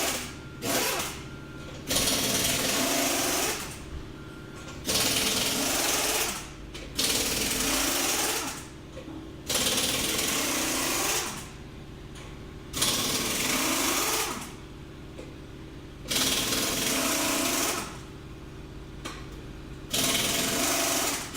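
Loud mechanical noise in regular bursts of about two seconds, repeating every two seconds or so, over a steady low hum.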